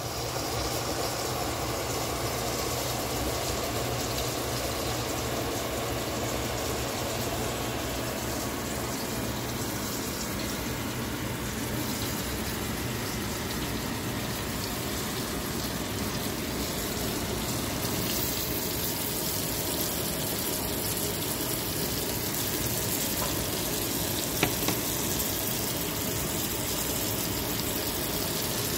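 Butter and oil sizzling in a frying pan, a steady hiss and crackle of food pan-frying, with one sharp tick late on.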